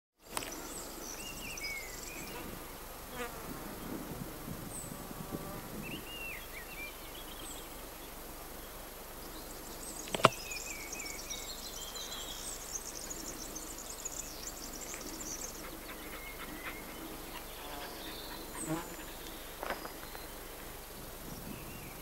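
Insects buzzing close by, over scattered bird song of short high chirps and trills. A single sharp click about ten seconds in is the loudest sound.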